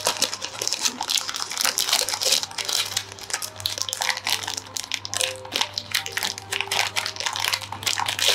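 Clear plastic packaging crinkling and rustling in the hands as it is opened, with soft background music underneath.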